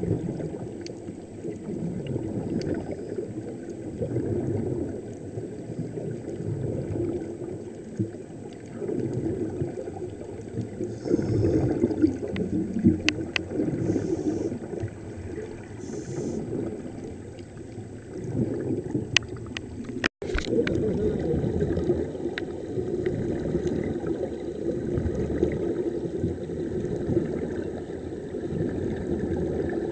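Muffled underwater rumbling and gurgling picked up by a submerged camera, with air bubbles streaming up and a few sharp clicks in the middle stretch. The sound cuts out for an instant about two-thirds of the way through.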